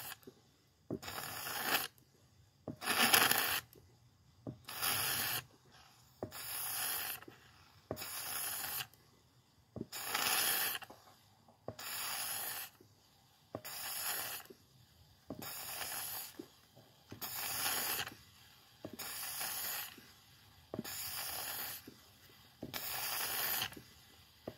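Fluid extractor pump being worked in steady, even strokes, each a rasping hiss about every two seconds, as it sucks water-contaminated fuel out of a small-engine fuel tank.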